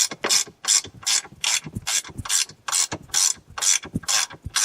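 A hand ratchet turning a fastener, clicking in quick, even strokes about three times a second.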